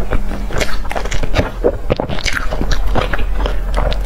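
Close-miked chewing and wet mouth sounds, irregular smacking clicks several times a second, as a crusty bun with a soft creamy filling is eaten.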